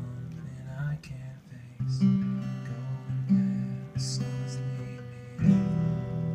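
Acoustic guitar strumming chords in a song's instrumental break. Each chord rings and fades, with fresh strums about two, three, four and five and a half seconds in.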